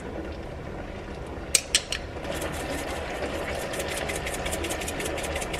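Pepper mill grinding black pepper over a pan: after a few sharp clicks, rapid, even clicking starts about two seconds in and keeps going. A steady hiss runs underneath.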